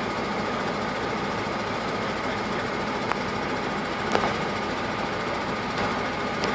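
Vehicle engine idling steadily, heard from inside the cab, with a few light clicks and a sharper knock about four seconds in as a loose wooden bridge plank is shifted.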